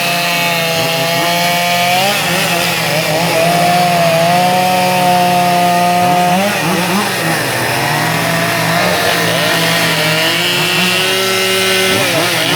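Chainsaw running steadily at high speed, carving into wood, its engine pitch shifting a few times as the load changes.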